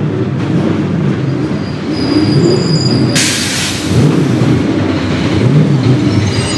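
Chevrolet Camaro SS race car's V8 burbling at low revs, its pitch wavering, as the car rolls slowly down the pit lane. Thin high squeals come around two seconds in, and a short burst of hiss about three seconds in.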